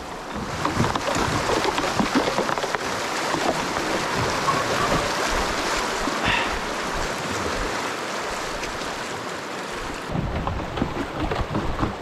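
Fast, shallow creek water rushing around a loaded canoe as it runs a riffle, with paddle strokes in the water. Wind buffets the microphone over the last couple of seconds.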